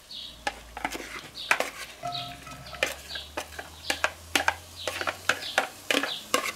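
A plastic slotted spatula scraping chopped onions out of a plastic bowl into a cast-iron Dutch oven, with irregular clacks and scrapes as it knocks against the bowl and the pot.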